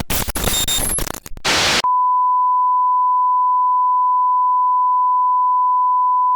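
Harsh broadcast static with brief dropouts, cutting off suddenly about two seconds in to a steady 1 kHz sine test tone held unchanged for the rest: the off-air tone of a station that has signed off.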